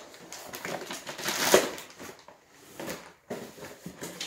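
Rummaging through a cardboard shipping box of packed parts: plastic packaging crinkling and cardboard rustling in irregular handling noises, with the loudest crunch about a second and a half in.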